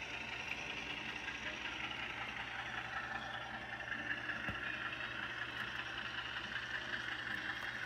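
Digital sound-decoder recording of a GE diesel engine, played through the small onboard speaker of an HO-scale U28C model locomotive, running steadily.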